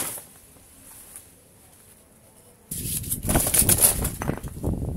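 A short click at the start, then about three seconds in loud, close rustling and knocking, like the camera or microphone being handled or fabric flapping right against it.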